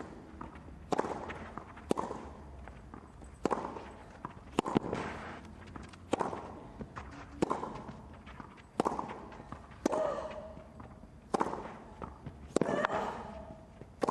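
Tennis rally on a clay court: racquets strike the ball back and forth, about a dozen sharp hits roughly a second and a quarter apart, alternating louder and softer as the ball passes between the near and far ends.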